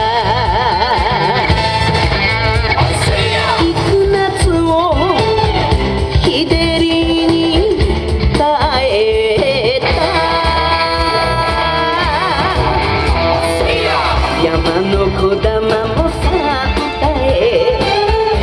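Recorded Japanese song for a festival hand dance: a solo singer with heavy vibrato over a band accompaniment with a steady bass beat, playing without a break.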